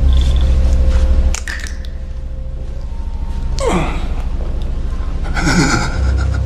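Low, pulsing drone of film-score music. Over it a man lets out a groan that falls steeply in pitch a little after halfway, then a loud breathy gasp near the end.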